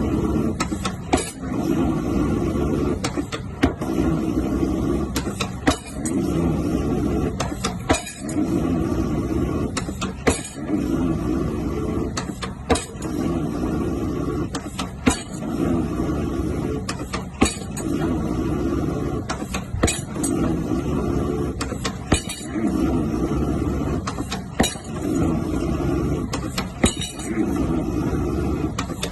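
Pile driver at work, in a repeating cycle about every two seconds: a low mechanical rumble lasting about a second and a half, then sharp strikes.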